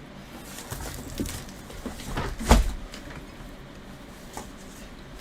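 Handling noises: a few knocks and rustles, with one louder thump about two and a half seconds in and a small click near the end.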